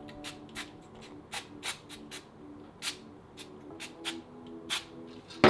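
Irregular light metallic clicks and taps of a brake caliper bracket and its bolts being handled and fitted, over soft background music, with one sharp loud knock near the end.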